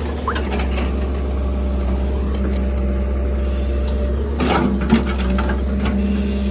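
Backhoe loader engine running steadily, with a few sharp knocks about four and a half to five seconds in.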